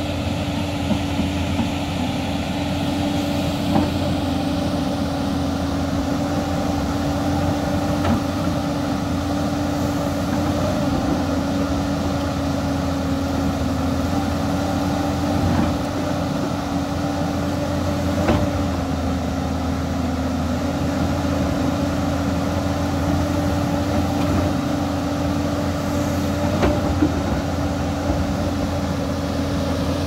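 JCB NXT tracked excavator's diesel engine running steadily as the machine digs into a soil bank. A handful of brief sharp knocks from the bucket striking earth and stones sound over it.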